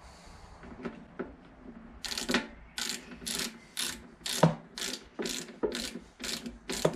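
Torque wrench ratchet head clicking as it is swung back and forth on the fuel pump flange bolts of a motorcycle fuel tank, about two strokes a second, starting about two seconds in after a few faint ticks.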